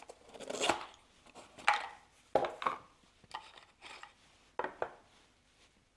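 Hands handling a small cardboard gift box and pulling a paper insert out of it: about six brief scrapes, rubs and light knocks of card against card and fingers.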